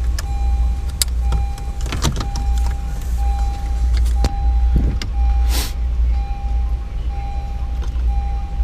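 A car's electronic warning chime repeating about once a second, with a low hum pulsing along with it. Scattered clicks and rattles of plastic trim and wiring connectors being handled sound over it, with a short hiss about halfway through.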